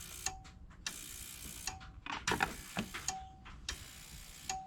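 Ultrasonic cleaner running in pulses: a hissing buzz that switches on and off about every one and a half seconds, each burst ending with a short steady tone.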